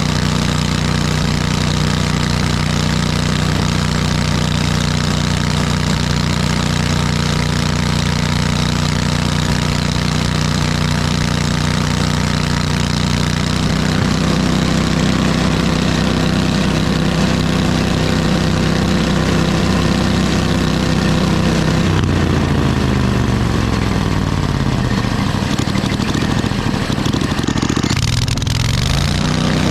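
Engine running steadily. About two-thirds of the way through, its speed sinks slowly over several seconds, then climbs quickly back up just before the end.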